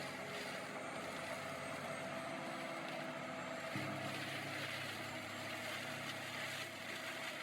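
Machine engine running steadily, with a faint hum whose low note shifts slightly about four seconds in.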